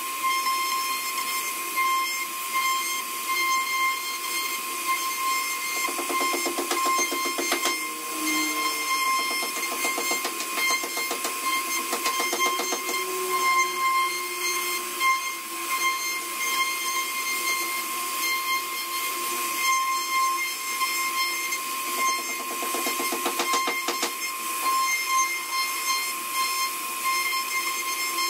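CNC router spindle running with a steady high whine while the bit cuts into wood, with a hiss over it. Twice, about six seconds in and again about twenty-two seconds in, a rapid buzzing rattle comes in for a couple of seconds.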